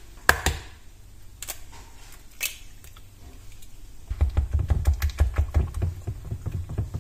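An egg cracked with a sharp knock and a few light taps, then, from about four seconds in, a nylon balloon whisk beating eggs into flour in a glass bowl with rapid knocking strokes.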